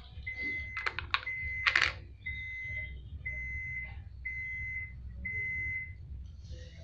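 An electronic beep repeating about once a second, four times in a row, each beep a steady high tone of under a second; it is preceded by a longer stretch of the same tone with a few sharp clicks over it.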